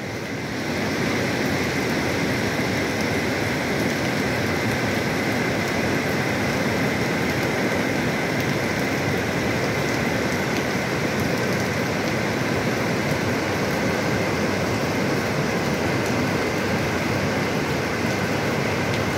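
Teesta river in flash flood, a broad torrent of muddy water rushing past in a steady, unbroken wash of water noise.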